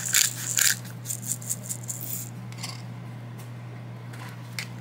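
Pepper mill grinding peppercorns: a quick run of sharp grinding clicks for about the first two seconds, then a few scattered clicks.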